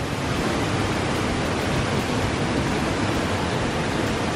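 River water rushing steadily, an even unbroken hiss of flowing water.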